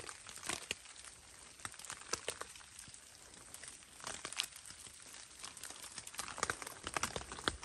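Irregular crinkling and rustling of material being handled, with scattered light clicks and ticks.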